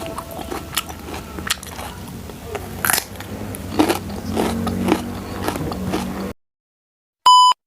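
Crunchy food being bitten and chewed close to the microphone, many irregular crisp crackles, with crispy fried instant noodles among the foods eaten. It cuts off abruptly about six seconds in, and after a moment of silence a single short electronic beep sounds near the end.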